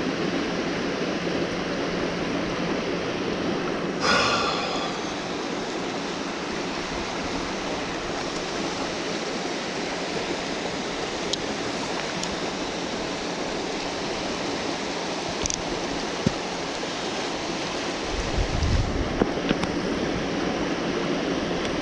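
Steady rush of fast-flowing creek water below a dam. A brief pitched call comes about four seconds in, and there are a few low thumps near the end.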